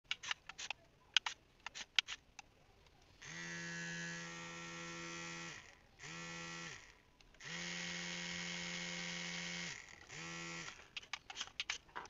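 Small brushed DC motor spinning a plastic propeller fan, switched on from the radio remote four times: two runs of about two seconds and two short ones, each speeding up and winding down in pitch. A few light clicks come before the first run and after the last.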